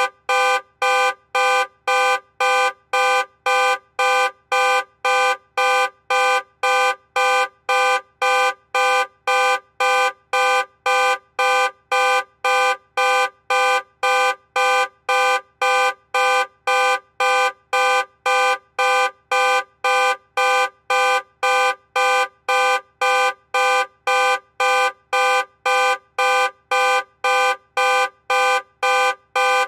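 Car alarm sounding in a steady, loud on-off pulse of honks, about two a second.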